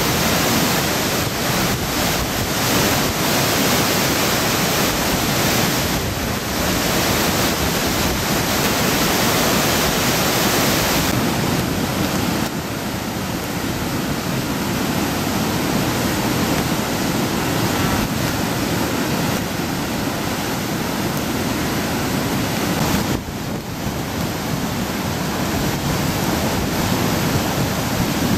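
Loud, steady rushing of a typhoon-flooded river, its muddy floodwater surging in towering standing waves close by. The tone shifts slightly about twelve seconds in, with a brief dip near the end.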